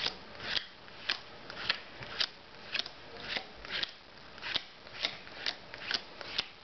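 Playing cards dealt one at a time onto a wooden tabletop, each card landing with a short, crisp slap, about two a second in a steady rhythm, as the deck is laid out face up into three columns.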